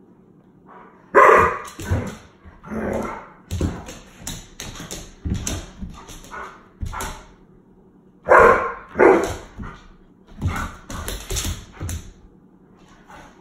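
Alaskan Malamute giving a run of short play barks and yips, starting about a second in, loudest at the start and again about eight seconds in, stopping about twelve seconds in.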